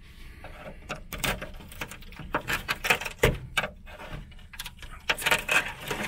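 A thin metal tool scratching and prodding at the rusted-through sheet steel of a VAZ 2106's front fender. From about a second in there is an irregular run of sharp scrapes and clicks, thickest near the middle and again near the end.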